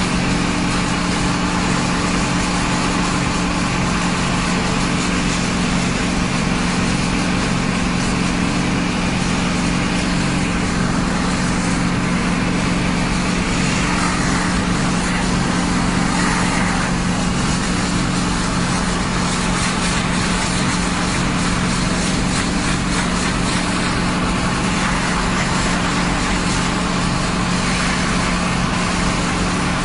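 Truck engine running steadily at constant speed, with a steady hiss of water spraying from a fire hose onto a smouldering hay bale.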